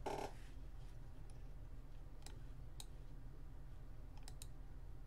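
Computer mouse clicks while navigating a map: one click a little over two seconds in, another about half a second later, and a quick double click near the end, over a low steady hum.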